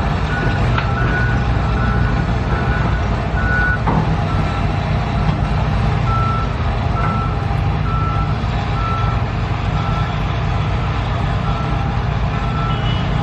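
Backup alarm on construction machinery beeping in an even rhythm, about two beeps a second, over the low steady running of a heavy vehicle's engine. About four seconds in, the beeping shifts to a slightly lower, slower tone.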